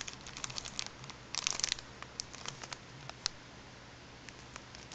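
Clear plastic packaging bag crinkling as hands handle it, in scattered crackles. They are busiest about a second and a half in and thin out after about three seconds.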